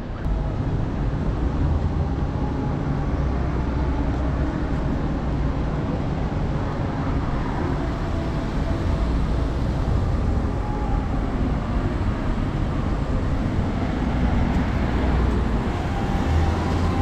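Road traffic: cars driving past, a steady low rumble.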